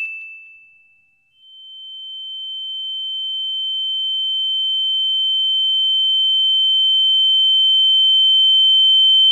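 High, pure electronic tone. A ringing note fades out over the first second, then after a short gap a slightly higher steady tone slowly grows louder.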